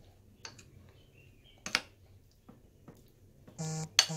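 A utensil tapping and clinking against a glass mixing bowl while stirring thick batter: a few separate sharp clicks, the loudest about halfway through.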